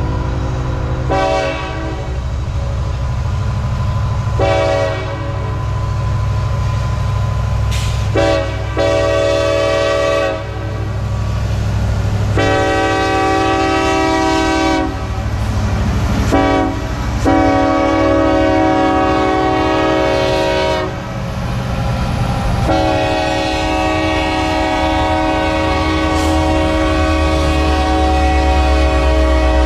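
Diesel locomotive's air horn blowing a series of about seven blasts, some long and some short, the last one held for several seconds, over the steady low rumble of the train.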